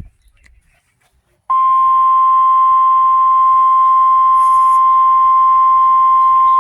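A short knock, then about a second and a half in, the loud, steady single-pitch warning alarm tone of a NOAA Weather Radio emergency broadcast starts and holds unbroken. The tone is the 1050 Hz signal that announces a warning, here a tornado warning, is about to be read.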